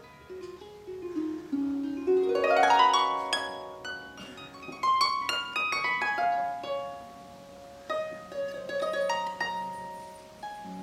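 Pedal harp played solo: plucked notes ringing on, with a quick rising run of notes about two seconds in that is the loudest part, then single notes of a slower melody.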